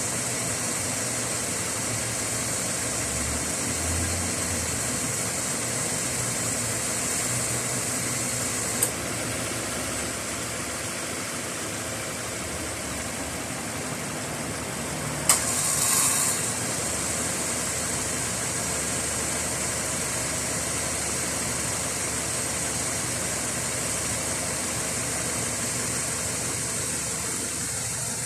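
2015 Subaru Impreza 1.6's flat-four engine idling with a steady high hiss, broken by two sharp clicks about 9 and 15 seconds in. The second click is followed by about a second of louder high buzzing, which fits the cicada-like noise this car's air-conditioning compressor makes as it kicks in, a fault awaiting repair.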